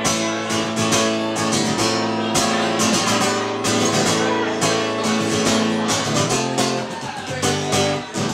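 Acoustic guitar strummed live in a steady rhythm, an instrumental passage with no singing.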